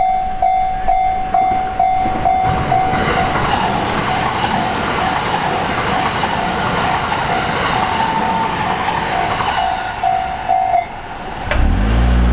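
Japanese railroad crossing alarm ringing its repeated ding about twice a second while an electric commuter train rumbles and clatters through from a few seconds in. The alarm stops near the end, and a car engine starts pulling away.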